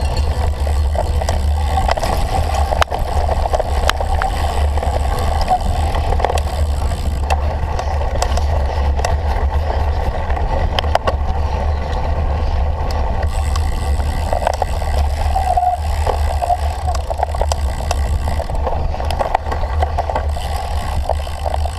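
Cyclocross bicycle being raced over rough ground, heard from a bike- or rider-mounted camera: a steady loud rumble of tyres and frame with frequent rattling clicks and knocks.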